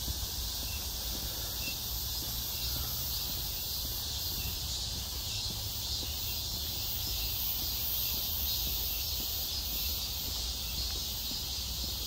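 Steady high-pitched chorus of insects in the trees, with a low steady rumble underneath.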